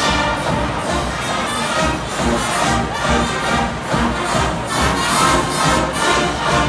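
College marching band playing, brass over a steady drum beat, with stadium crowd noise underneath.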